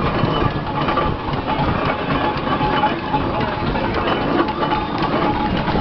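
Steam traction engine running as it rolls slowly past close by, a steady, rapid mechanical knocking from its cylinder and motion.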